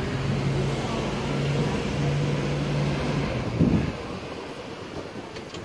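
Tour bus engine running with a steady low hum under road and wind noise, heard from the open top deck. A brief low thump about three and a half seconds in, after which the sound drops quieter.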